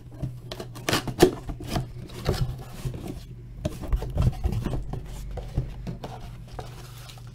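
A sealed cardboard box being opened and handled: irregular scraping, rustling and small knocks of cardboard and wrapping, over a steady low hum.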